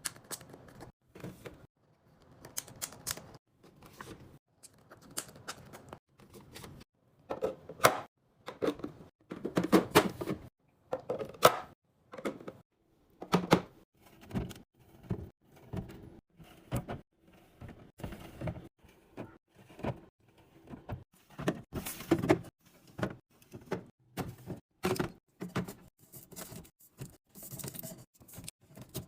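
Food items and containers being handled and set down while a fridge is restocked: a dense, irregular run of clicks, taps and knocks, with louder clusters about a third of the way in and again past the middle.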